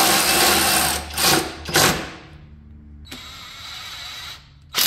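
Cordless power tool running in short trigger bursts as it tightens the bolt of a new engine ground strap, with a longer, steadier motor whir in the second half.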